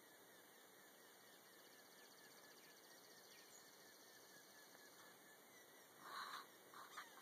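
Near silence: faint outdoor ambience, with a brief louder sound about six seconds in and another short one near the end.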